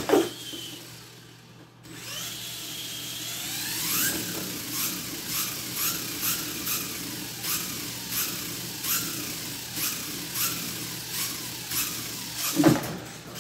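Venom Mini Giant RC monster truck's brushless electric motor whining in repeated throttle blips, about two a second, each a short rising whine, while the truck sits balanced upright on a cardboard box. A knock as it hits the box at the start, and another thud near the end as it drops off.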